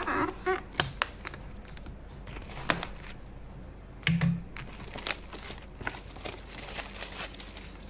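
Packaging being unwrapped and torn open by hand: irregular sharp rustles and clicks.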